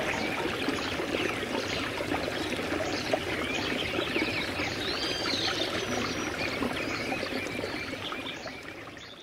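Running water of a stream, a steady rushing and trickling, with a few faint high chirps over it; it fades out near the end.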